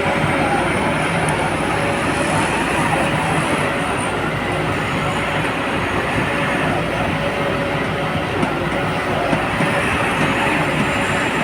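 Industrial mobile wood crusher running steadily: a loud, continuous noise with a faint steady whine through it.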